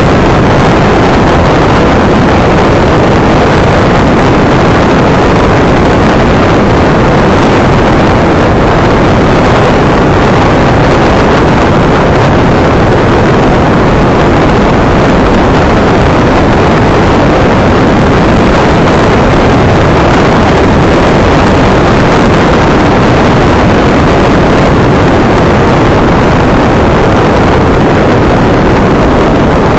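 Honda NC750 motorcycle being ridden along a road: a loud, steady rush of wind and engine noise on the bike-mounted camera's microphone.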